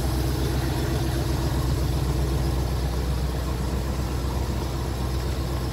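The engine of a 1972 Century 22-foot boat running steadily underway, a low hum under a steady rushing hiss.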